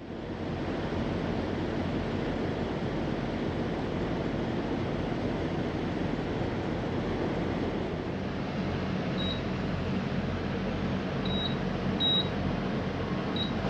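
Steady engine and road noise inside a semi-truck's cab while driving, with a low hum. A few short, high beeps sound in the second half.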